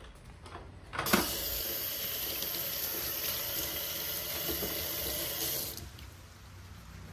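Kitchen tap running into a stainless steel sink as jenipapo fruits are rinsed by hand under the stream; the steady rush of water starts suddenly about a second in and stops abruptly near the end.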